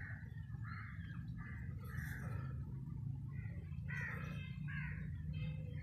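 Crows cawing: a run of short, harsh calls in quick succession over a steady low hum.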